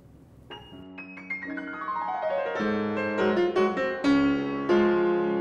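Short piano jingle for the eHow logo: single notes enter one after another from about half a second in and ring on, piling up into full chords that are loudest near the end.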